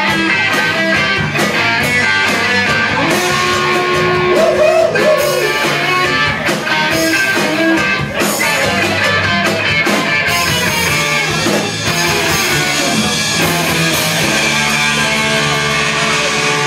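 Live rock band playing: electric guitar, bass guitar and drum kit, loud and continuous.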